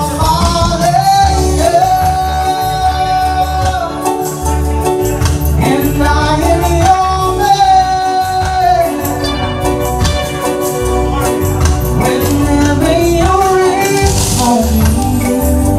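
Live reggae band: a male vocalist sings long, wavering held notes over keyboards and drums with a steady low beat.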